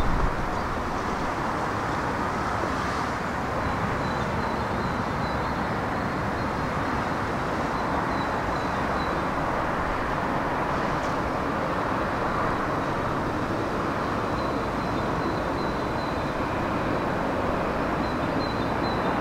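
Steady outdoor street ambience: a continuous hum of road traffic.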